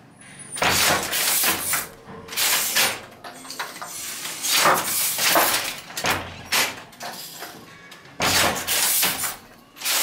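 Hand-operated Jacquard loom weaving silk: the wooden batten and loom mechanism clatter and thud in a working rhythm, a noisy clack about every one and a half to two seconds.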